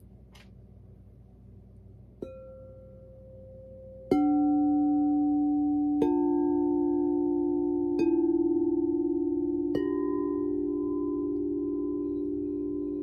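Frosted quartz crystal singing bowls from a chakra sound-bath set, struck one after another with a mallet. There are five strikes about two seconds apart. Each leaves a pure ringing tone that layers into a sustained chord, with a slow wavering, and the chord slowly fades.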